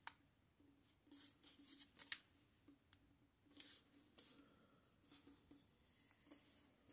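Thin double-sided origami paper being folded and creased flat with the fingers: a few faint, brief crisp rustles and scrapes, the loudest about two seconds in.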